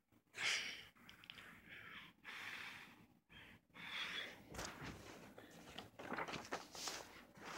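Paper and cardboard of an album cover and sleeve rustling and scraping as they are handled, in irregular bursts of about a second each.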